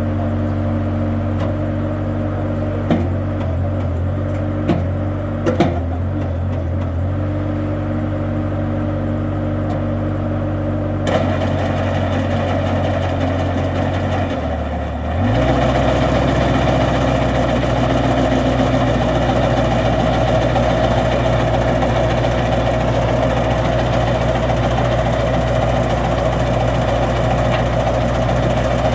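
Skid-steer compact loader engine running steadily, with a few short knocks in the first seconds. About halfway through it dips briefly, then picks up to higher revs and runs louder and steady, with a rushing mechanical noise over it.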